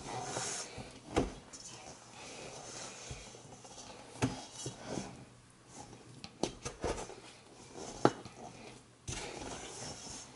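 Wooden spoon stirring stiff, shaggy bread dough in a stainless-steel mixing bowl: a scraping, squishing mix with irregular knocks of the spoon against the bowl, the loudest about eight seconds in.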